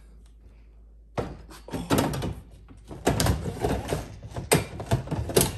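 Kitchen cabinet drawer being worked by hand: irregular wooden thunks and rattling, starting about a second in, with several sharp knocks.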